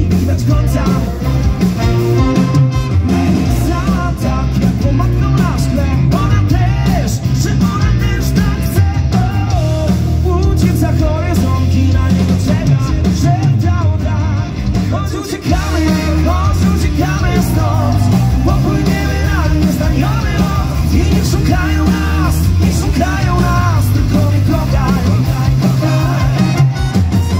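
Folk-rock band playing live at full volume: a singing voice over accordion, electric guitars, bass and drums, with a steady, heavy bass pulse.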